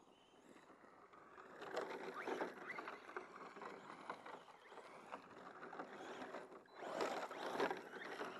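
Crunching, scraping noise of something moving over loose ground, full of small clicks, louder about two seconds in and again near the end.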